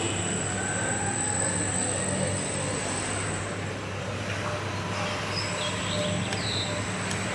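Steady low background hum and hiss with a thin, high, steady whine, and a few faint ticks near the end.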